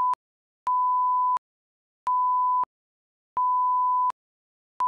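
Repeated electronic beeps of one plain, steady tone: three beeps of about two-thirds of a second each, with silent gaps of about the same length, plus the tail of one beep at the start and another beginning at the very end.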